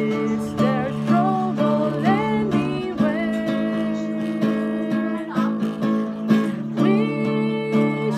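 Acoustic guitar strummed in steady chords under a single voice singing a slow hymn melody, with held notes that waver and glide.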